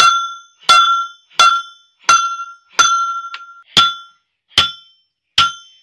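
Hand hammer striking a steel punch held in a red-hot forged hammer head on a steel block. There are eight ringing metallic strikes, about 0.7 s apart, spacing out a little toward the end; the strike about three seconds in rings longest.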